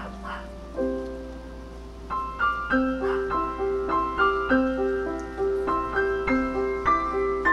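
Background piano music: a slow, gentle melody of single notes, falling into an even rhythm from about two seconds in.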